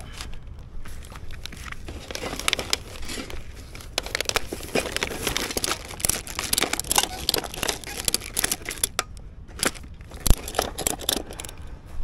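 A plastic bag stuffed with empty plastic bottles and cans crinkling and crackling as it is handled and strapped down onto a motorcycle's rear rack, with a sharper knock near the end.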